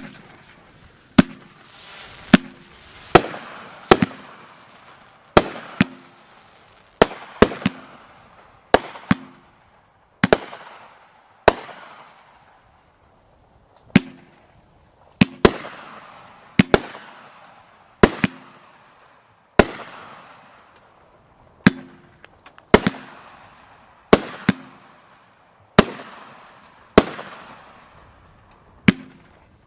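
A 500 gram fireworks cake (Red Rhino Vacation Destination) firing shot after shot. There are about two dozen sharp bangs, roughly one a second, each trailing off in a fading crackling hiss, with a short lull about halfway.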